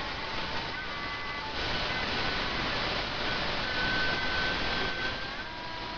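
A woman and a young boy holding a long shouted note into a webcam microphone. The microphone distorts it into a fuzzy, hissing noise, with the held pitch of their voices faintly showing through.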